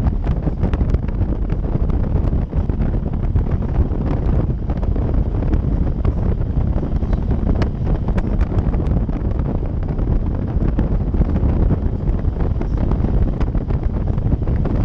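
Wind blasting over a helmet-mounted camera's microphone on a moving motorcycle: a steady low rumble with scattered crackles, covering any engine sound.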